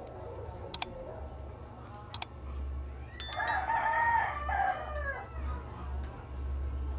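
A rooster crows once, a call of about two seconds starting about three seconds in. Before it come two short pairs of sharp clicks.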